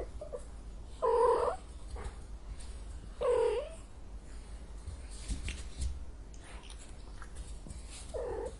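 Angry domestic cat giving three short, harsh calls about two seconds apart and then a longer gap, with a faint low rumble between them.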